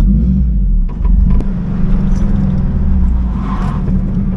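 Air-cooled Volkswagen Beetle flat-four engine running as the car drives, heard from inside the cabin as a steady low drone with road noise.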